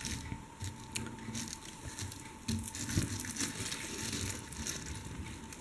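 Faceted acrylic beads strung on nylon thread clicking and rustling against one another and the table as the beadwork is handled, a run of small irregular clicks and scrapes.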